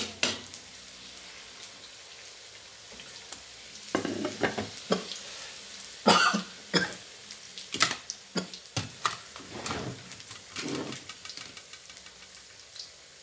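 Wontons deep-frying in hot oil in a steel wok, sizzling steadily, with a clink at the very start. From about four seconds in, a metal slotted spatula scrapes and clacks against the wok in a run of strokes as the wontons are turned, then it settles back to the sizzle near the end.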